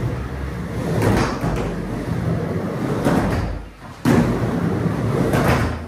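Skateboard wheels rolling on a wooden mini ramp, a steady rumble through the transitions with sharp knocks of the board on the ramp. It goes quiet briefly as the skater reaches the lip, then a hard clack as the board comes back down about four seconds in.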